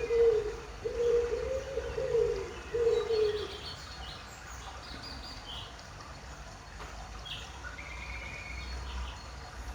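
A dove cooing, a series of low, rounded coos over the first three and a half seconds, followed by small birds chirping faintly.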